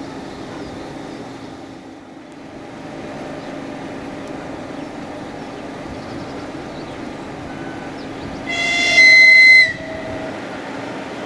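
An electric locomotive hauling a passenger train approaches with a steady rumble. About eight and a half seconds in, it sounds one shrill, high-pitched horn blast of about a second, the loudest thing here, whose pitch sags as it cuts off.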